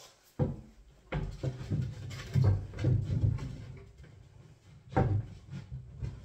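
Wooden board knocking and scraping against the side of a kitchen cabinet as it is pushed and shuffled into position by hand: a string of dull knocks and thuds, with sharper knocks about half a second in, around a second in and near five seconds.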